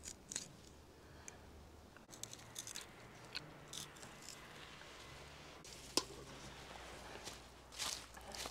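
Raw sturgeon chunks being handled and pushed onto steel skewers: faint wet squishes with small scrapes and clicks of the metal skewer, and one sharp click about six seconds in.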